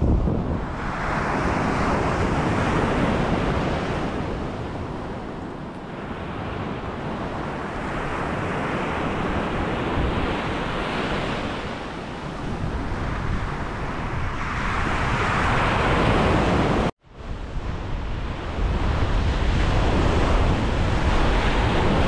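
Ocean surf breaking on a sandy beach, the rush swelling and fading every five seconds or so, with wind rumbling on the microphone. The sound cuts out for a moment about two-thirds through, and the wind rumble is stronger afterwards.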